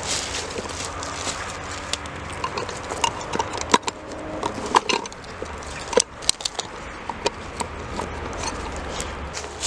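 Wood campfire crackling over a steady hiss, with many irregular sharp pops and snaps.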